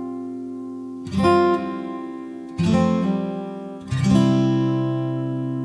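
Background music: an acoustic guitar strumming chords slowly, three strums about a second and a half apart, each chord left to ring out.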